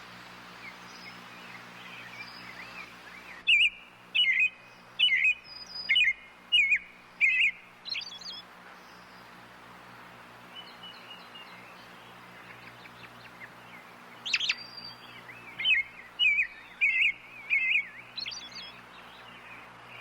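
Robin calling: two runs of short, clear whistled notes, about two a second. One run comes about four seconds in and the other about fourteen seconds in.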